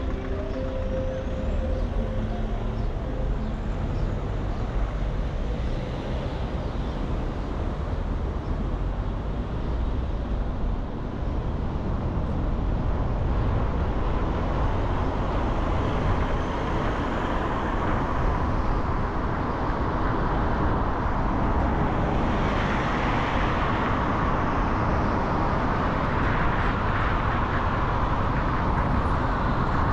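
Traffic and road noise from a car driving through city streets: a steady rush of engine and tyre noise that grows louder and brighter from about halfway through.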